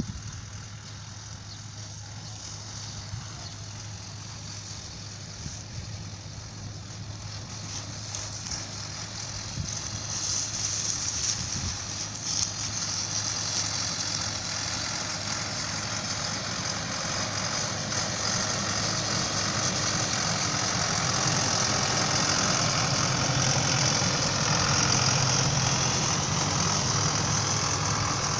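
Tractor engine running steadily while pulling a working hay baler, with a clattering mechanical hiss over the engine hum; it grows gradually louder as the machine comes closer.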